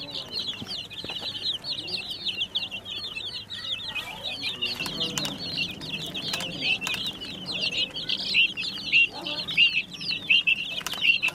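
A flock of baby chicks peeping: many short, high-pitched peeps overlapping in a constant chorus.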